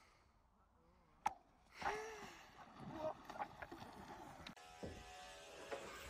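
A golf club strikes a ball on thin pond ice, a single sharp click about a second in, followed by faint scattered knocks and short ringing tones.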